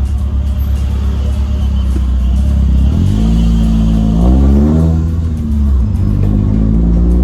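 Car engine running while driving, with steady road noise; the engine note rises about three seconds in, then rises and falls again around four to five seconds in as the car accelerates and eases off.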